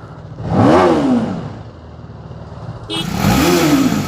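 TVS Apache RR310's stock single-cylinder engine being revved on the throttle, echoing in a tunnel. One rev rises and falls about half a second in. Another run of revs starts near the three-second mark and swells again by the end.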